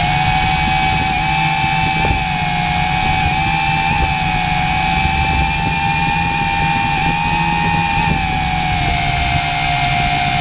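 A drone's electric motors and propellers whine steadily in flight, recorded on the camera mounted on the drone. The high whine wavers slightly up and down in pitch as the motor speed shifts.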